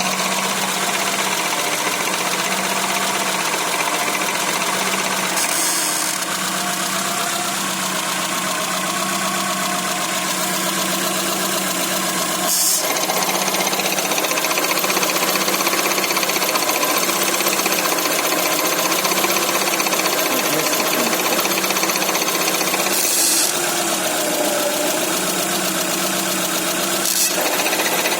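ZAZ Tavria/Slavuta engine idling with a steady, rapid knocking that the owner puts down to the gearbox, a knock heard at idle and sometimes on the move. A few brief sharp clicks stand out over it.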